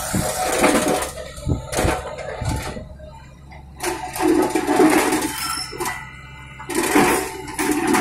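Rock and soil tipped from an excavator bucket into the steel body of a Hino 300 dump truck: bursts of rushing, clattering spill with several sharp knocks, over the steady hum of the SANY excavator's engine.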